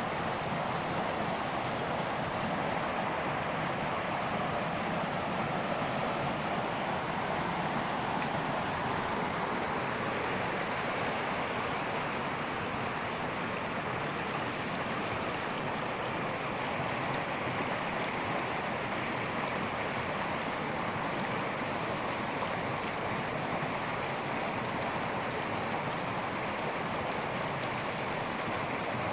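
Steady rushing of water, an even unbroken wash with no distinct splashes.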